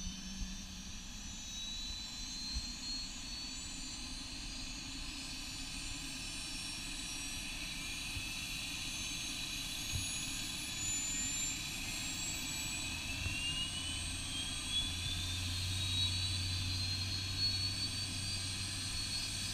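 Bell 206 JetRanger helicopter's Allison 250 turboshaft engine spooling up during start-up: a high turbine whine rising steadily in pitch, with a low hum coming in about two-thirds of the way through and growing stronger.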